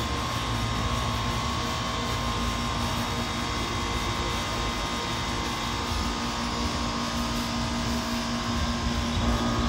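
Air conditioner running: a steady hum with a higher whining tone over a low rumble.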